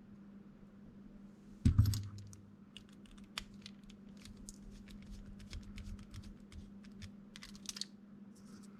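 A single knock about two seconds in, then a run of small, light clicks and ticks: small screws being fitted and driven into a 3D-printed plastic part with a screwdriver. A faint steady hum underneath.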